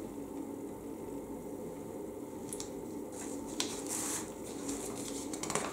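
Pages of a paper instruction booklet rustling as they are handled and turned, a few short rustles in the second half.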